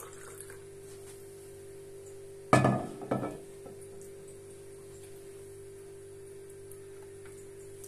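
A glass jug set down on a counter: one loud knock about two and a half seconds in, then a smaller knock half a second later, over a steady low hum.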